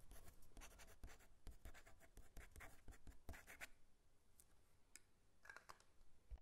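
Faint scratching of a pen writing on paper: a busy run of short strokes for about four seconds, then a few scattered strokes.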